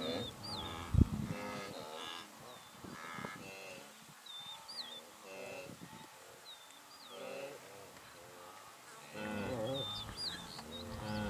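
Several low, drawn-out calls of large grazing animals, cattle-like, spread through the clip, with small birds giving short high chirps. A single sharp knock comes about a second in.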